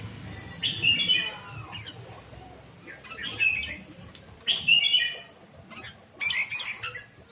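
Red-whiskered bulbul (chào mào) of the Hóc Môn song type singing: four short, quick warbled phrases a second or two apart, the third the loudest.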